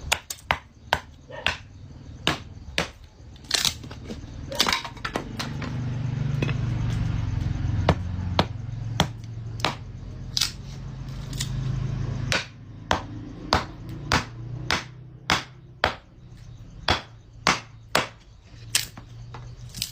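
Firewood being chopped with a blade: a long run of sharp, dry strikes, roughly two a second, with a low rumble in the middle stretch.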